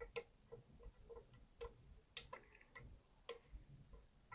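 Faint, irregular metallic clicks and ticks of a lock pick and tensioner working inside an Abus V14 lock cylinder, the pick probing for a loose ball bearing jammed in the core.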